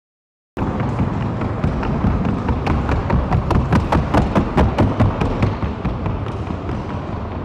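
Hoofbeats of a Colombian Paso Fino colt in the trocha gait: a fast, even patter of hoof strikes over a rumble of arena noise, starting suddenly about half a second in and clearest midway through.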